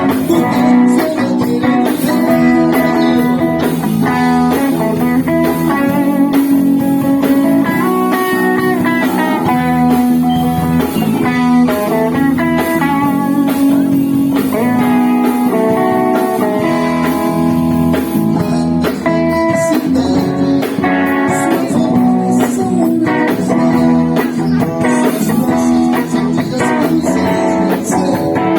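Band playing an instrumental passage without vocals, led by a melodic electric guitar line over bass and keyboard.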